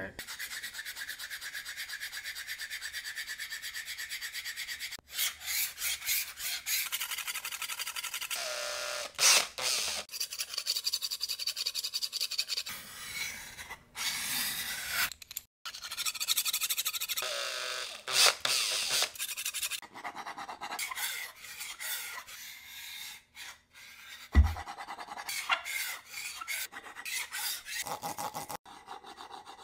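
A series of short, abruptly cut sound-effect clips of a hand tool rasping and rubbing on wood, fast strokes at first, then varied scraping pieces with brief gaps. A single sharp knock comes about two thirds of the way through.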